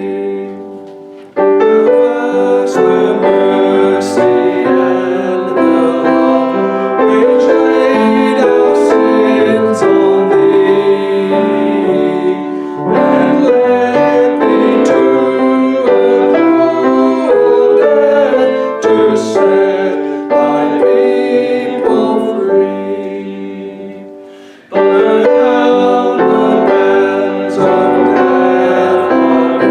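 Congregation singing a hymn with piano accompaniment. The music dies away briefly just after the start and again about three-quarters of the way through, each time starting up again at once with the next verse.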